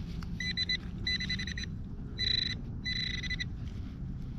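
Nokta Legend metal detector sounding through its built-in speaker: a run of high, same-pitched beeps, a couple of quick ones followed by longer ones of about half a second, as it responds to a target.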